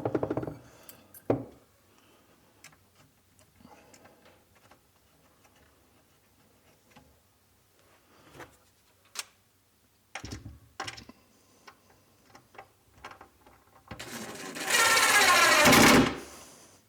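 Power drill driving screws through drawer-slide slots into a cabinet side: a short run at the start, a brief burst about ten seconds in, and a louder run of over a second near the end, with small clicks and handling noises in between.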